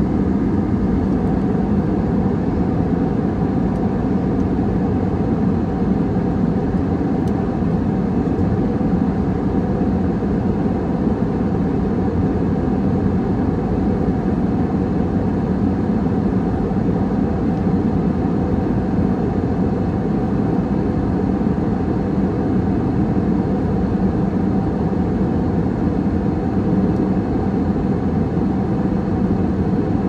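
Steady cabin noise of a jet airliner in cruise, heard inside the cabin: an even, unbroken rush of engines and airflow, deepest and strongest low down, with a faint steady hum above it.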